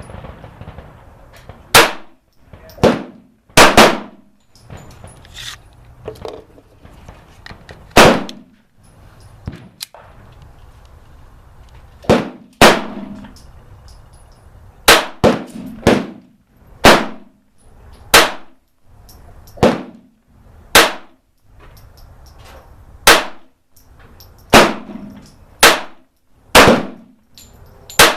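Kel-Tec P17 .22 LR semi-automatic pistol firing single shots at an uneven pace, about eighteen in all, with longer pauses early on and quicker runs of shots a second or so apart in the second half.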